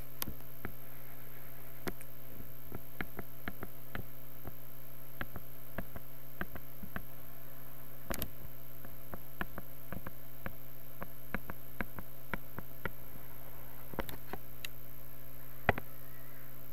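Steady electrical hum from the recording setup, with scattered light clicks of a computer mouse as points are plotted on screen; one click near the end is louder.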